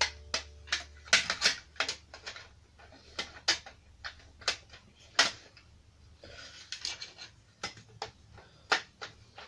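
Irregular sharp clicks and knocks of hard plastic and metal computer parts being handled and set down, with a short stretch of faint rustling about two-thirds of the way through.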